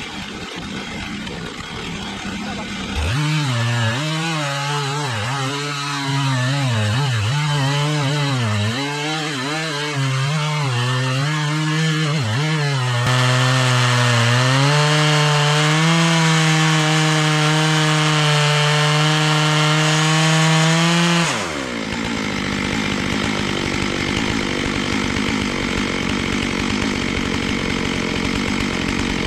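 Stihl MS 661 two-stroke chainsaw in an Alaskan chainsaw mill starting its cut into the log. The engine note rises and falls unevenly for several seconds, then holds steady at high revs under load. About two-thirds of the way through the engine cuts off suddenly, and a steady noisy hiss is left.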